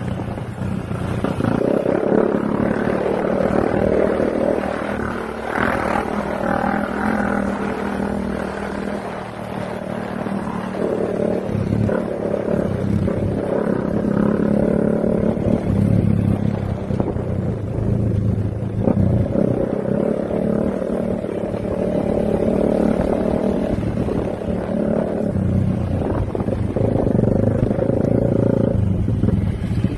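Motorcycle engine running while riding over a rough dirt track, its note rising and falling with the throttle.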